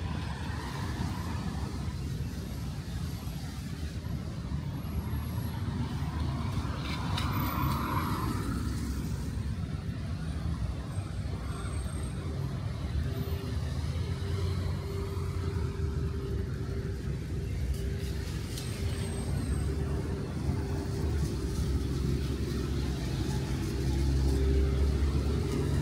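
Road traffic on a rain-wet city street: vehicle engines running with a steady low rumble. A brief louder noise comes about a third of the way in, and a steady hum joins about halfway through.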